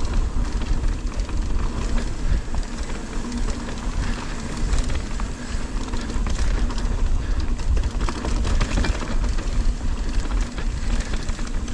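A 2023 Ibis Ripmo AF mountain bike rolling fast down a dirt singletrack: tyre noise on the dirt and the bike clattering over bumps, with wind buffeting the camera microphone throughout.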